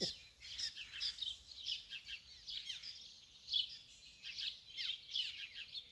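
Several birds chirping and singing: many short, high chirps, several sweeping quickly downward in pitch, overlapping one another.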